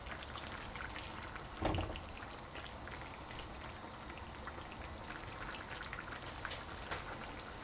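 Pan of vegetables in tomato sauce simmering on the stove, a steady patter of small bubbles crackling, with one soft knock about two seconds in as salmon pieces are laid into it.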